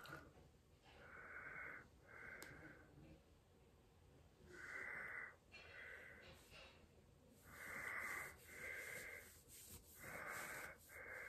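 A person breathing quietly and audibly, in-and-out pairs of breaths about every three seconds.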